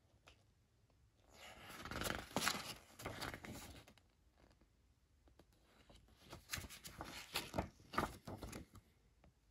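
Paper rustling and crinkling as a printed booklet is handled and its pages turned, in two bouts: from about one to four seconds in, and again from about six to nine seconds in.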